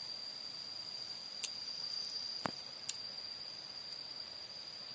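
Steady, high-pitched insect chirring that runs on unbroken, with a few sharp clicks, the loudest a single tap about halfway through.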